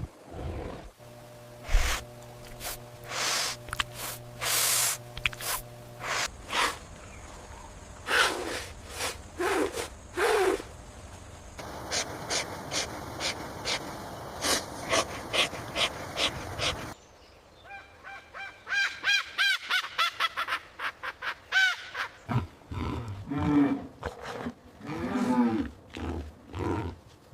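A run of recorded animal calls, several short clips one after another with abrupt changes between them, each holding repeated calls.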